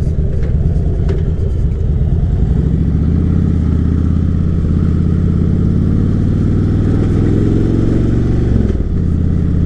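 Harley-Davidson V-twin motorcycle engine running under way: the revs climb slowly over several seconds, then drop suddenly near the end and hold steady.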